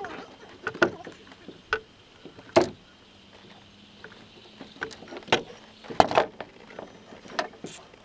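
Scattered knocks and clunks from handling fishing gear in an aluminium boat, about eight short, sharp strikes at uneven intervals.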